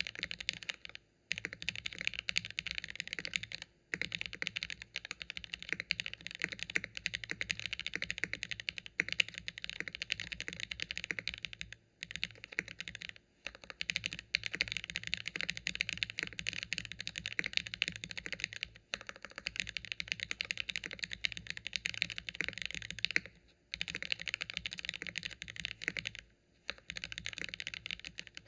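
Fast, continuous typing on a KBDfans Phase One 65 mechanical keyboard with Gateron Oil King linear switches, GMK keycaps and an aluminium plate, with the case foam taken out. The typing stops briefly a few times along the way.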